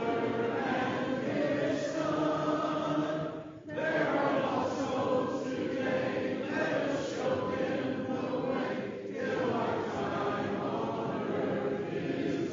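Church congregation singing the invitation hymn a cappella, many voices together in sustained phrases, with a short break between phrases about three and a half seconds in.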